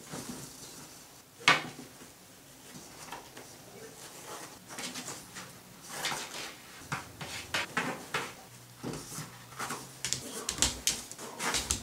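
Toilet paper rustling, crinkling and tearing as a kitten paws, bites and pulls it off a wall-mounted roll, in quick irregular bursts that grow busier near the end. There is one sharp knock about a second and a half in.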